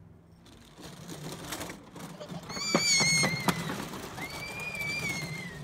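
A small child shrieking with delight twice, long high squeals, over the low rumble of a homemade roller-coaster car rolling along its track, with a few sharp clacks from the wheels near the middle.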